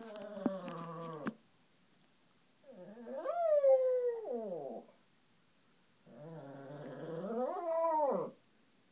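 An old dog howling: three long howls, each rising and then falling in pitch, the first already under way at the start, with a few sharp clicks during it.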